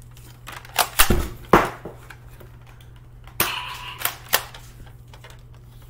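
Sharp plastic clicks and knocks from Nerf gear being handled, about six in all, two with a dull thud about a second in, and a short rustle about three and a half seconds in.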